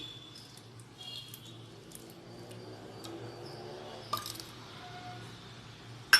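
Boiled yam pieces being mixed with chilli powder, crushed garlic and spices, a soft, uneven squishing with small clicks, ending in a sharp knock.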